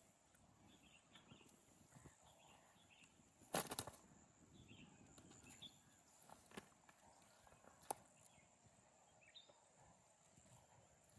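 Near silence: faint outdoor ambience with a few soft chirps, broken by a brief knock about three and a half seconds in and a sharp click near the end.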